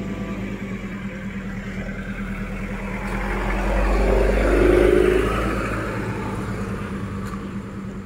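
A motor vehicle's engine grows louder as it passes close by, peaking about four to five seconds in and then fading, over a steady low hum of idling engines.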